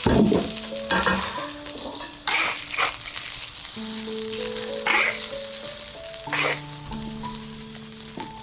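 Food sizzling as it fries in a hot pan, stirred with a spatula in a few separate scraping strokes, over soft background music.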